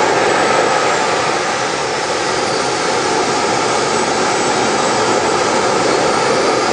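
Small model jet turbine engine running steadily: a loud, even rush of exhaust with a faint high whine over it.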